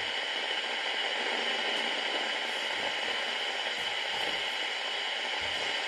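Steady static hiss from a Vocaline CB radio's speaker, the open channel carrying no voice.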